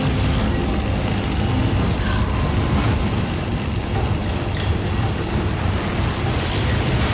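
Film sound effects for a magical energy attack: a steady, heavy rushing rumble with no clear tones and no distinct hits.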